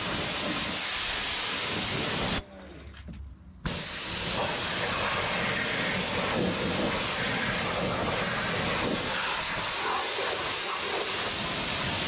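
Pressure washer spraying water into a car's open tailgate, rinsing the trunk sill, seals and jambs: a steady hiss of spray that breaks off for about a second, a couple of seconds in, then starts again.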